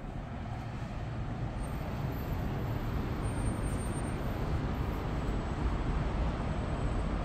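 Steady hum of city traffic rising from the streets far below, getting slightly louder as the balcony is reached.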